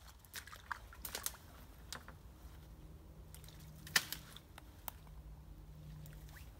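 A hand sieve dipped and worked in a shallow muddy stream: a string of small splashes and drips, the loudest about four seconds in, over a steady low hum.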